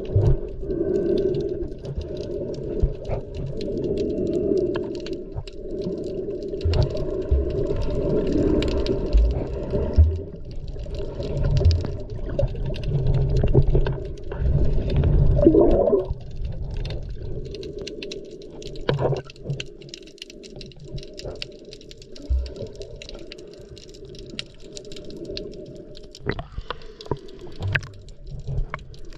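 Muffled underwater sound of water swirling and surging around a snorkeller, in uneven swells that lie mostly low in pitch, with scattered faint clicks. A brief rising tone comes about halfway through, and the sound grows quieter after that.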